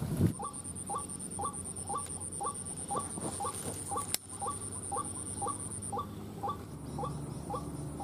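White-breasted waterhen's 'ruak' call, one short note repeated steadily about twice a second. A thin high whine runs above it and drops out briefly near the end.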